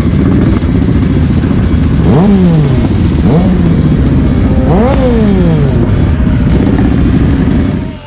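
Motorcycle engines running under way, with a steady low rumble and road noise. The revs climb and fall away twice, about two seconds in and again about five seconds in.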